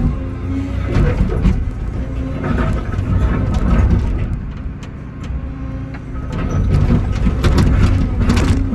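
Excavator diesel engine running steadily under load, with irregular knocks and scrapes of concrete being broken up, clustered about a second in and again near the end.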